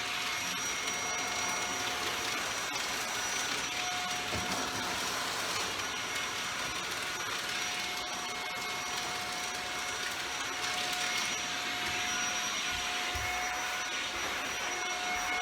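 Shark Powered Lift-Away Rotator Speed vacuum cleaner running steadily, its motor giving a constant high whine over the rush of suction air.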